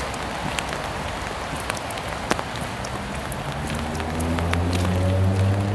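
Rain falling, with scattered sharp ticks of drops striking close by. About halfway in, a low steady hum comes in and grows louder.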